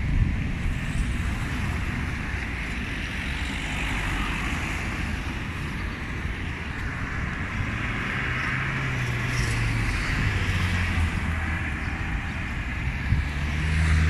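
Road traffic on a city street: cars driving past, their engine hum swelling around the middle and again near the end over a steady wash of tyre and street noise.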